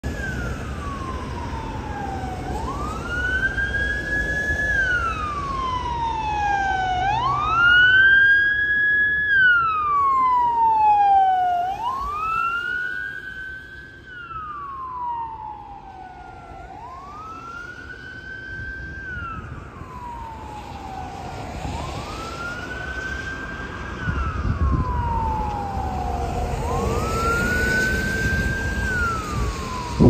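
Ambulance siren sounding a slow wail: it rises quickly, holds briefly, then falls, about every four and a half seconds. It is loudest about a third of the way in as it passes, then fades. A second, higher siren with faster falling sweeps overlaps in the first half, and road traffic rumbles underneath.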